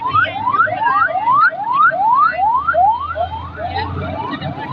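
Electronic alarm sounding a fast, regular series of rising whoops, about three a second, growing weaker near the end.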